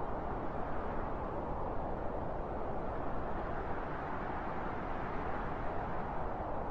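Steady wind, a dull rushing noise heaviest in the low and middle range, holding an even level.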